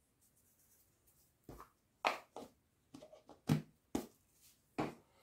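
Kitchen things being handled at a mixing bowl with a mesh sieve: after a quiet second and a half, several light, irregular knocks and taps.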